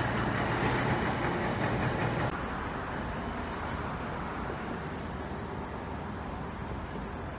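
Steady rumble of heavy vehicles and machinery around a city construction site, with a low engine-like drone. It is louder for about the first two seconds, then drops off sharply to a quieter steady hum.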